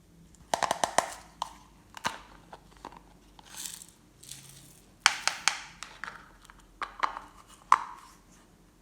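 Glossy slime being squished and poked by hand, giving sharp sticky clicks and pops in quick clusters, the loudest runs about half a second in and about five seconds in.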